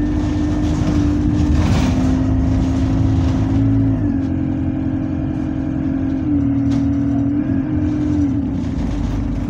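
On-board sound of a single-deck bus's diesel engine and driveline running as the bus drives along, a steady low rumble under a strong whine. The whine shifts pitch a few times, about four seconds in and twice more near the end.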